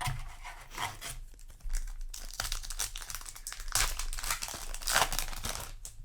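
Crinkly foil wrapper of a trading-card booster pack being handled, crinkling and crackling irregularly for a few seconds, loudest in the middle.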